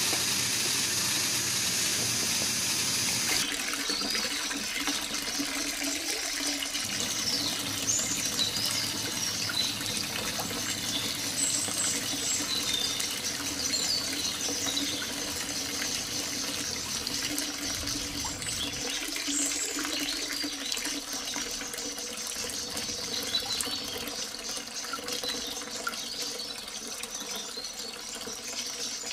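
A thin stream of water pours and splashes steadily from a miniature hand pump's spout into a small concrete tank, then trickles along a soil channel.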